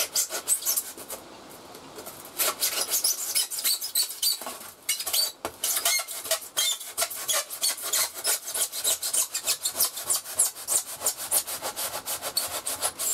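A handsaw cutting across a rigid foam pipe insulation section in quick back-and-forth strokes: a dry rasping, with short pauses about a second in and again around five seconds. This is the first cut across the diameter, not yet all the way through.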